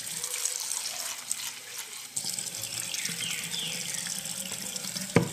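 Water poured from a plastic bowl into an aluminium pot of beans, a steady splashing pour. A single sharp knock near the end.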